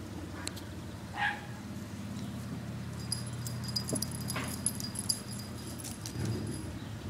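A dog gives two short high whimpers, about a second in and again around four and a half seconds, over a steady low hum.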